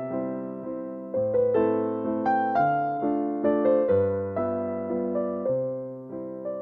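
Background music: a gentle electric piano melody, notes struck and left to decay over a low accompaniment.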